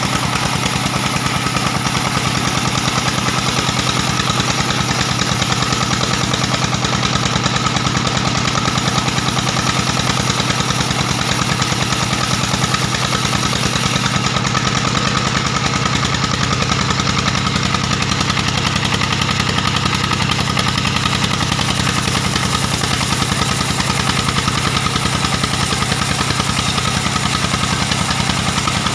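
Stationary diesel engine driving a band sawmill, running steadily with a fast, even firing beat.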